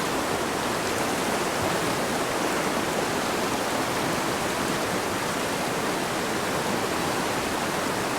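Small mountain creek rushing over a bed of large rocks: a steady, even rush of flowing water.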